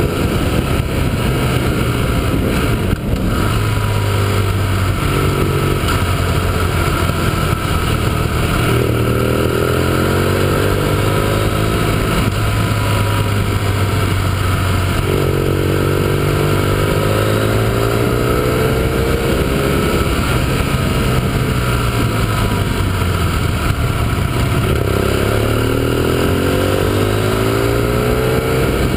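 Motorcycle engine running at road speed, its pitch rising and falling several times with throttle and gear changes, over steady wind noise on the microphone.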